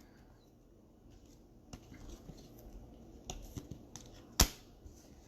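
Trading cards being handled: faint rustling and sliding of cards, with scattered light clicks and one sharper click about four seconds in.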